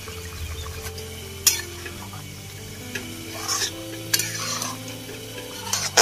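A spatula stirring pork curry in a metal wok, scraping and clacking against the pan a few times, about a second and a half in and again near the end, over the sizzle of the bubbling gravy.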